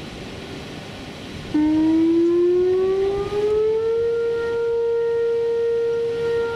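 Outdoor tornado warning siren sounding. About a second and a half in it starts, rises in pitch for a couple of seconds, then holds a steady wail.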